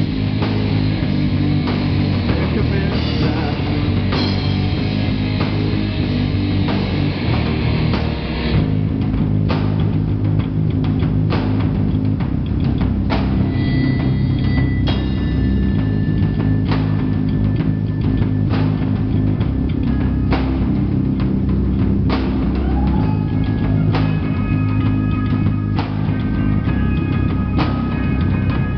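Live heavy rock band playing loud: electric guitars and bass over a drum kit. About eight seconds in the music changes, and the drums then hit in a slower, evenly spaced beat under held guitar notes.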